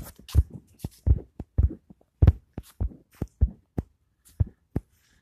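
Irregular low thumps, two or three a second, from the footfalls of the person filming as they run across grass with the phone, knocking on its microphone. They stop shortly before the end.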